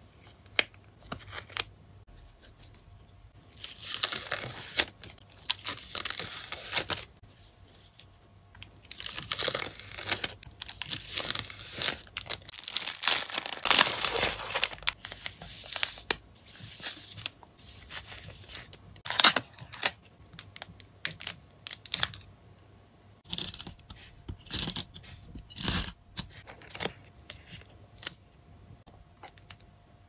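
Hands crinkling and rustling clear plastic photocard sleeves and peeling sticky tape while packing photocards. There are two long stretches of rustling in the first half, then shorter crackles and taps.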